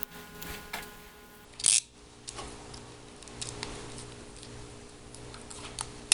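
Black electrical tape being pulled off the roll and wrapped around spliced wires: one short rasp of tape peeling about two seconds in, then scattered small clicks and crinkles as it is handled.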